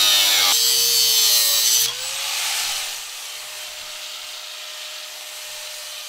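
Angle grinder with a cutoff disc finishing a cut through the sheet-metal side of a school bus: a loud grind that stops about two seconds in as the cut goes through. The grinder then runs on unloaded with a steady whine that rises a little and holds.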